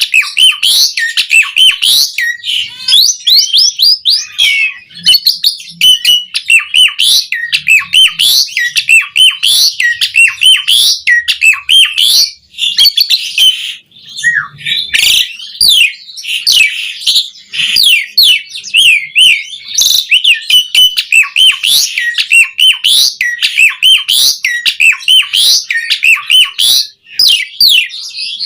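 Javan pied starling (jalak suren) singing a fast, continuous song of quick varied whistles and chirps, packed with imitated phrases, with hardly a pause.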